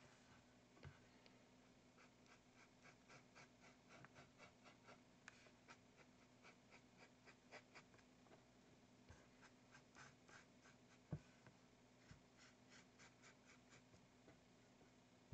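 Faint, short strokes of a small paintbrush on an acrylic canvas panel, about two a second, over a low steady hum, with one soft knock about eleven seconds in.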